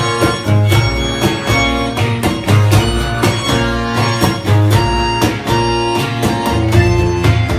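Music: an instrumental piece with plucked guitar-like notes, a melody line and steady bass beats.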